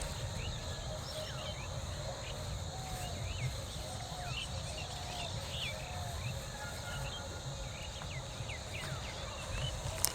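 Rural outdoor ambience: many short bird chirps scattered throughout, over a steady high insect drone and a low rumble. A sharp click comes right at the end.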